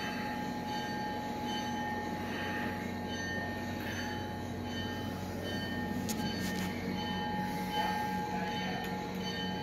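Steady mechanical hum with several held tones, and a couple of faint clicks about six seconds in.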